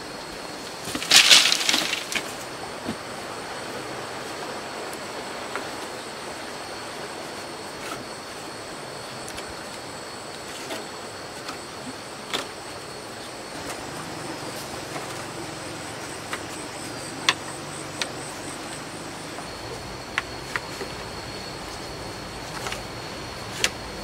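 Wooden poles and sticks being handled: a loud rustling clatter about a second in as a bundle of leafy poles is set down, then scattered knocks and taps of wood. A steady high insect drone runs underneath.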